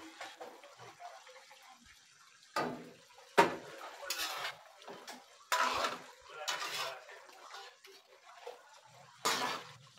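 Metal ladle scraping and clanking against an aluminium wok while stirring simmering squid adobo in coconut-milk sauce: a series of separate scrapes and knocks, the sharpest about three and a half seconds in.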